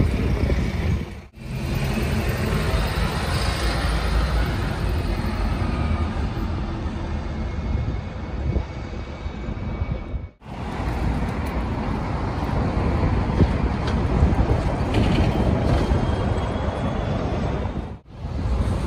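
Double-decker city bus engine and tyres passing close by over steady street traffic noise. The sound cuts out abruptly three times, about a second in, midway and near the end.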